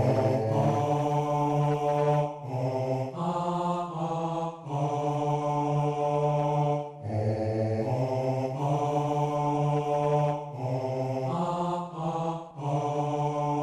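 Low, droning ritual chant in long held notes, stepping between a few pitches, in phrases of two to three seconds with short breaths between them.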